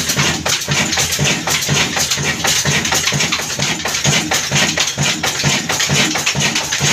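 Old stationary diesel engine with a heavy flywheel running steadily, an even, rhythmic clatter of beats.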